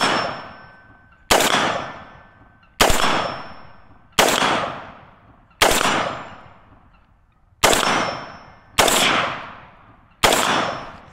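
Radical Firearms FR16 AR-15 rifle fired in slow, deliberate semi-automatic shots. There are eight sharp shots, the first right at the start, spaced roughly one and a half seconds apart, each with a long fading echo.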